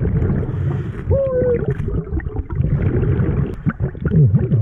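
Muffled underwater sound of a scuba diver breathing through a regulator, with exhaled bubbles gurgling, and brief muffled vocal sounds about a second in and again near the end.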